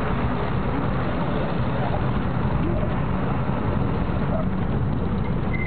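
Steady rumble of a vehicle driving on a rough dirt road, engine and road noise heard from inside the vehicle.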